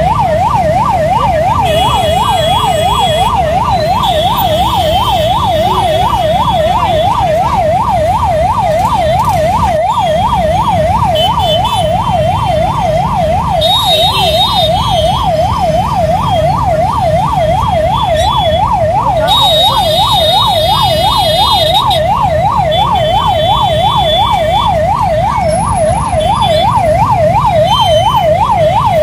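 Emergency-vehicle siren wailing fast and without pause, its pitch sweeping up and down about three times a second. Vehicle horns beep in short bursts over it, and idling engines rumble underneath.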